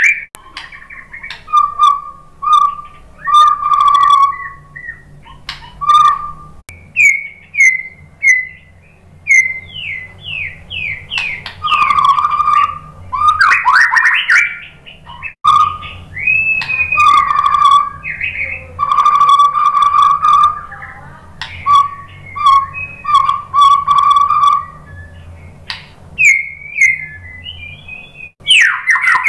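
White-rumped shama singing loudly: clear held whistles alternating with fast down-sweeping notes and sharp clicks, in bursts of phrases separated by short pauses.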